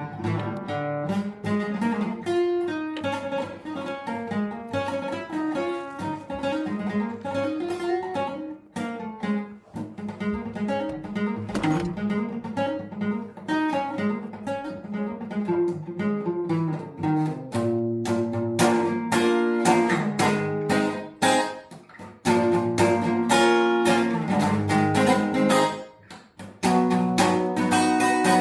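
Acoustic guitar playing: quick picked single notes and arpeggios, changing to fuller strummed chords about two-thirds of the way in, with a short break near the end.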